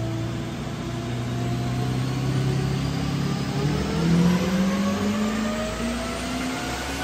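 Twin-turbo LS V8 in a Jeep TJ making its first pull on a chassis dyno: the engine note climbs steadily as it revs up under load, loudest about four seconds in, with a thin high whine rising along with it.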